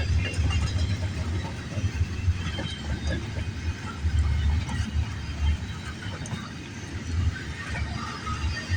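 Intermodal freight cars rolling past on the rails: a steady, uneven low rumble of wheels and trucks with scattered clicks and faint squeals.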